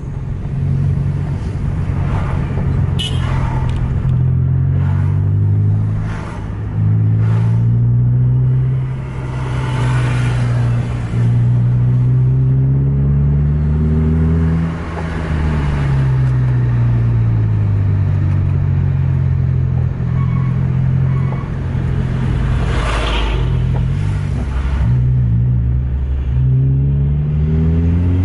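Bus diesel engine heard from inside the cab, pulling hard. Its note climbs, breaks off at gear changes, sinks as the throttle eases, and climbs again. A few passing whooshes come as lorries go by close alongside, the loudest about two-thirds of the way through.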